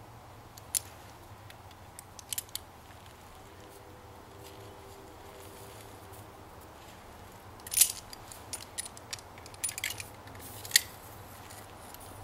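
Scattered sharp metal clinks and taps of tools on steel while forging rebar: one about a second in, a few just after two seconds, then a busier cluster from about eight to eleven seconds. Under them runs the steady hum of a hair dryer blowing air into the forge.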